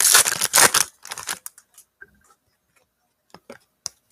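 A foil trading-card pack being ripped open in about a second, followed by a few light clicks as the cards are handled.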